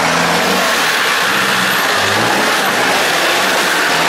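Modified 4x4 pickup's engine revving hard under load, steady and loud, while its large mud-terrain tyres spin and dig through loose dirt as it climbs out of a ditch.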